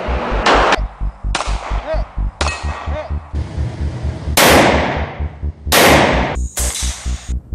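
Handgun shots fired one at a time, roughly a second apart, about seven in all; the louder ones ring out with a long echoing tail. Music with a steady low beat runs underneath.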